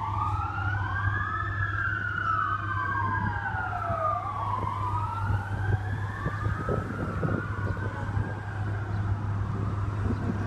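Emergency vehicle sirens on a slow wail, with two rising-and-falling tones crossing each other, over a steady low hum.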